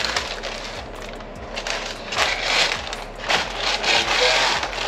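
Parchment paper rustling and crinkling in several short bursts as it is handled by hand.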